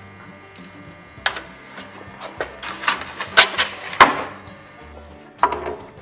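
Pieces of wooden lumber knocking and clattering against each other and the bench as they are handled: a run of sharp wooden knocks between about one and four seconds in, and another near the end.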